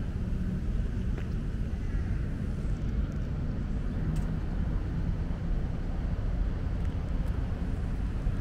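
Steady low outdoor rumble, with faint high chirps and a single short tick about four seconds in.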